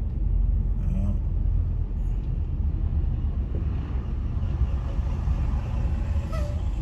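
Steady low road and engine rumble of a car moving in traffic, heard from inside the cabin.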